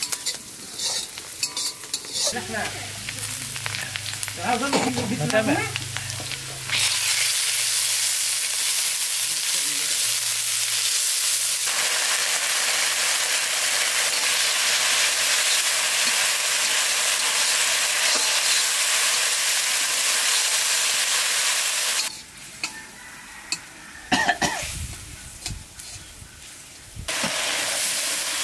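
Metal spatula scraping and stirring in a steel kadai, then a loud, steady sizzle of spices frying in hot oil for about fifteen seconds. It drops to scattered scrapes, and near the end the hiss comes back as water is poured into the hot pan.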